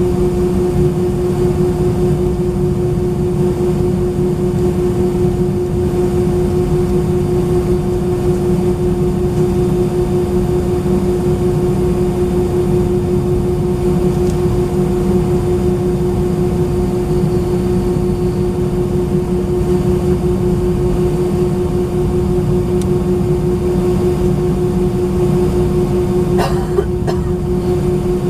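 Steady jet engine noise of an Airbus A319-131's IAE V2500 engines heard inside the passenger cabin: a loud, even rumble with a constant hum on top that does not rise or fall. A few faint clicks come near the end.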